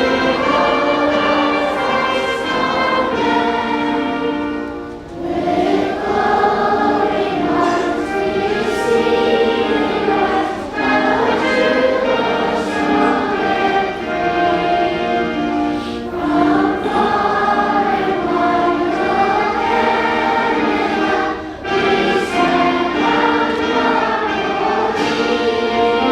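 A national anthem sung by a choir with orchestral accompaniment, in long sustained phrases with brief breaths between them.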